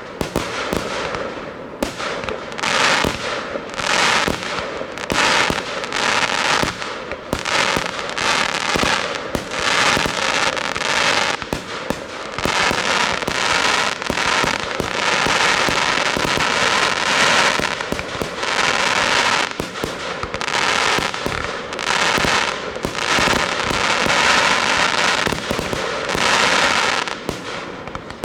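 Professional fireworks display: a dense, continuous barrage of shell bursts and crackling, several bangs a second with hardly a pause.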